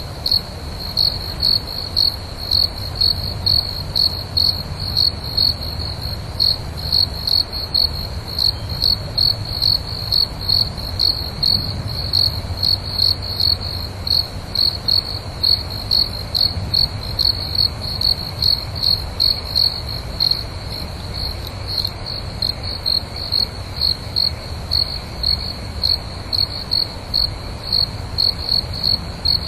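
A cricket chirping steadily, one high chirp repeated evenly about two to three times a second, over a faint low hum.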